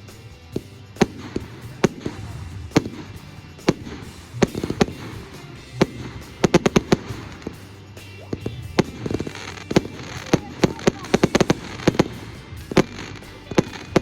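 Fireworks display: a string of sharp bangs from exploding shells at uneven intervals, coming in quick rapid-fire clusters about halfway through and again near the end, with some crackle.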